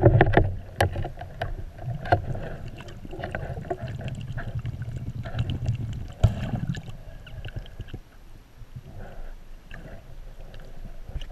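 Muffled rush of water heard through an action camera's underwater housing as a diver moves, with scattered sharp clicks and knocks, the strongest about six seconds in.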